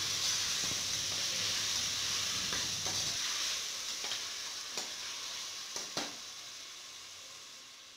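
Chopped tomatoes, onions and green chillies sizzling in hot oil and ghee in a pressure cooker, stirred with a spatula that scrapes and clicks against the pot a few times. The sizzle fades away over the last few seconds.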